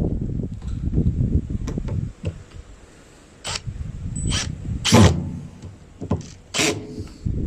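Irregular knocks and clanks of washing machine parts and tools being handled, over low rumbling handling noise, with the loudest knock about five seconds in.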